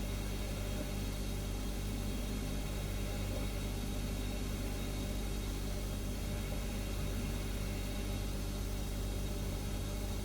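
Refrigerator humming: a steady low drone made of several fixed low tones, with a faint hiss above it, unchanging in level.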